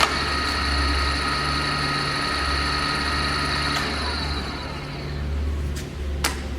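Jet JRD-700 radial arm drill's spindle switched on with a click and running with a steady whine. About four seconds in the whine slides down in pitch and fades as the spindle coasts down, over a steady low hum. There is a sharp click near the end.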